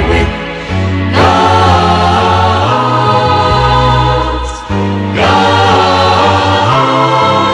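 Choir singing sustained chords over a steady bass accompaniment, with a new phrase swelling in about a second in and again about five seconds in.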